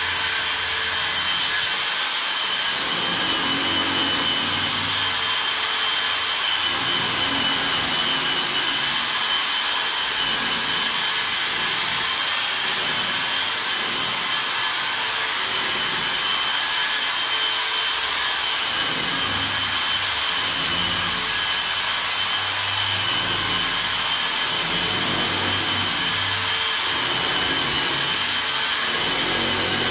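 Steady machine noise: a loud, even hiss with several thin high whining tones held steady throughout.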